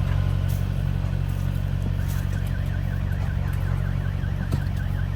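A vehicle engine running steadily, joined about two seconds in by a warbling warning alarm that sweeps up and down about four times a second.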